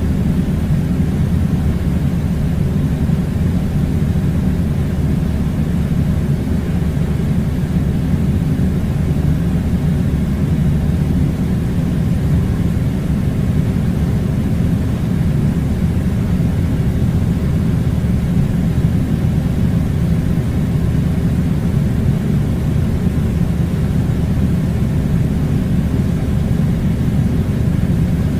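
Air conditioner running: a steady, loud, low rumbling rush of air that does not change.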